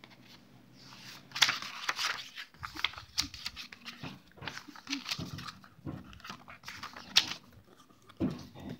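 Paper pages of a hardcover book being turned and brushed by hand: a run of short papery swishes and rustles, one after another.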